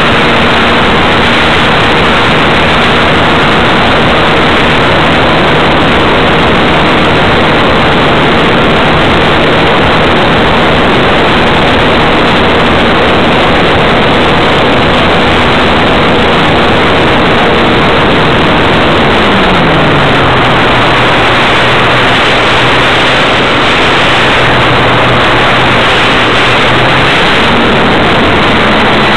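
Motor and propeller of a Wilga model aircraft heard through its onboard camera: a loud, distorted rushing noise with a steady hum. About two-thirds of the way through, the hum glides down in pitch as the motor slows, then holds lower.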